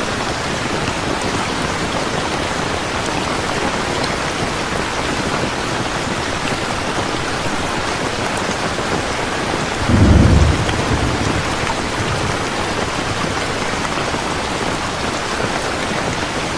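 Heavy rain falling steadily, with a rumble of thunder breaking in about ten seconds in and dying away over a couple of seconds.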